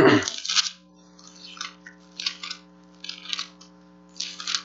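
Bible pages being turned: a string of short paper rustles, the loudest right at the start, over a steady low electrical hum.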